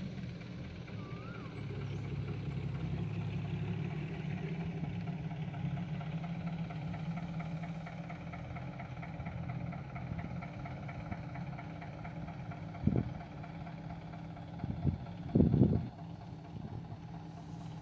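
Kobelco SK120 Mark 3 excavator's diesel engine running steadily, heavier in the first half, with three sharp knocks near the end: one, then two close together about two seconds later.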